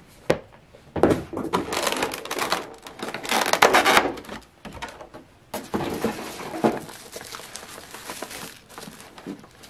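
Clear plastic packaging crinkling and rustling as hands pull a figurine out of its plastic tray and bag, loudest about three and a half seconds in.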